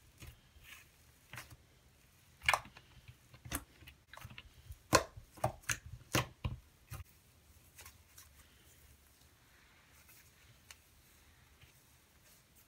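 Fingers poking and squishing a thick white-glue cloud cream slime, giving a string of sharp crackly pops and clicks, loudest about five seconds in, then fading to faint soft handling after about seven seconds.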